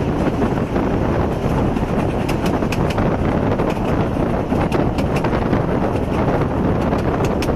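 Narrow-gauge railway carriage running along the track: a steady low rumble with wind buffeting the microphone held at the open window. Scattered sharp clicks and rattles come through it at irregular intervals.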